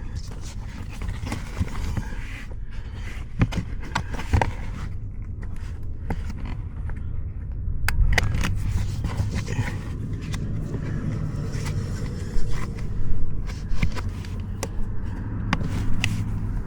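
Hands working plastic interior trim and wiring-harness connectors under a car's dashboard: scraping and rustling with scattered sharp clicks and knocks, a cluster of louder knocks about three-quarters of the way through.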